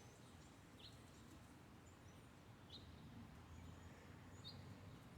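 Near silence with three faint, short, high bird chirps about two seconds apart.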